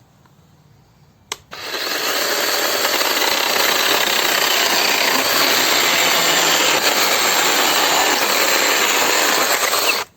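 Cordless electric chainsaw cutting wood: a short click, then the saw runs through the cut steadily for about eight seconds and stops abruptly.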